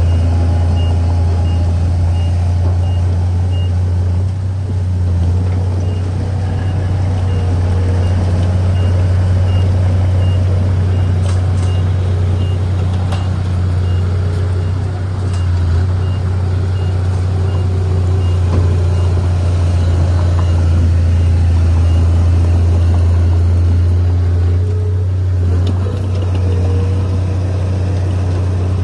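Heavy earthmoving machinery's engine running with a deep, steady drone, while a reversing alarm beeps about twice a second and stops about three-quarters of the way through. A few sharp clanks come midway.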